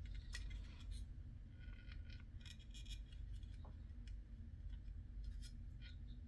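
Faint scattered clicks and scrapes of small plastic model-kit parts being handled and pressed together as a tiny rear-view mirror piece is worked into its mounting hole.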